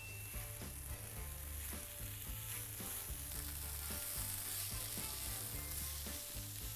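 Celery strips, diced kohlrabi and pesto sizzling in a hot frying pan as they are tossed and folded together with tongs. Soft background music with a steady low bass line plays underneath.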